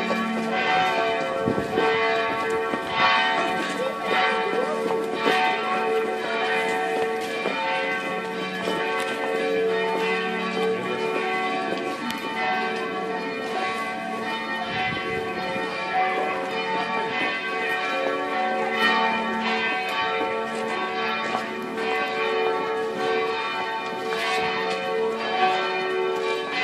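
Church bells ringing continuously, several bells struck over and over so that their tones overlap and hang on.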